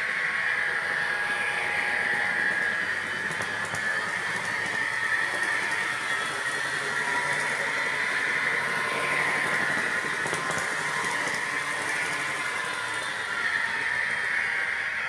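HO scale model F3A diesel locomotive running with its DCC sound decoder playing a diesel engine sound through a small onboard speaker, mixed with the whir of its motor and wheels on the rails. The sound is steady but grows louder and softer a few times as the locomotive circles the track.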